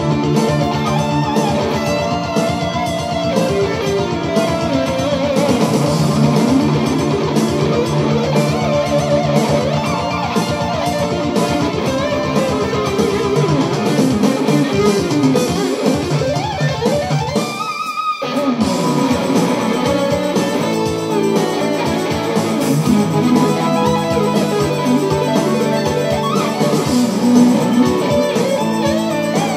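GJ2 solid-body electric guitar played through an amplifier: fast lead lines with pitch glides, breaking off briefly about two-thirds of the way through before the playing resumes.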